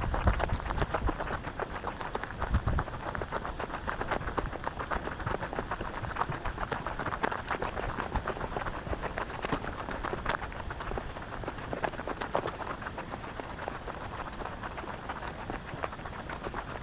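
Footsteps crunching on a dry bush fire trail: a dense, steady crackle of rapid small clicks.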